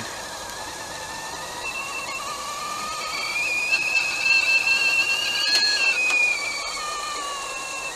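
Stainless-steel stovetop whistling kettle coming to the boil, its whistle sounding several pitches at once over a steady hiss. The whistle grows louder about three seconds in, wavers a little in pitch, and eases off near the end.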